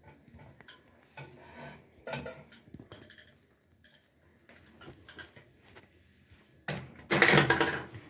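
Faint rubbing and small clicks of hands working around the rim of a stainless steel washing machine drum, then, near the end, a loud metallic clatter lasting about a second as the drum is shifted on the tile floor.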